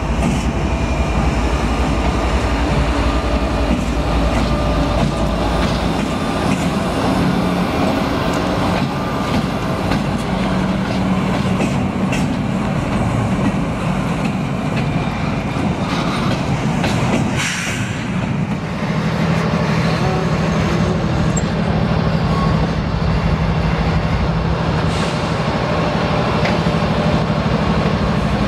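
Union Pacific double-stack container train passing close by: a steady rumble of wheels on rail with scattered clicks from the rail joints and a brief louder screech a little past halfway. From about two-thirds of the way through, the steady drone of a diesel locomotive's engine joins in as a locomotive in the train comes alongside.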